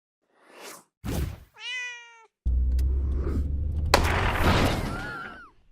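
A short whoosh and a thud, then a cat meowing once. After that comes a long, loud low rumble with a sharp click about four seconds in and a short falling whine near the end.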